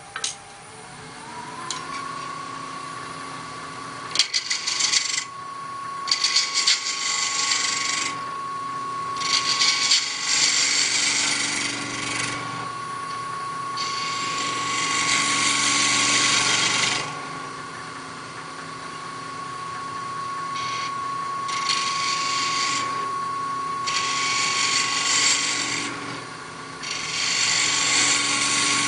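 Wood lathe motor spinning up over the first couple of seconds and then running with a steady whine, while a turning tool cuts the spinning knob in repeated hissing passes of one to four seconds each, seven or so in all.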